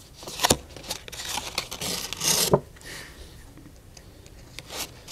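Sinew being pulled through punched holes in stiff rawhide while whip-stitching, with the hide crackling as it is handled: a few short rasps and sharp crackles, the longest rasp a little after two seconds in.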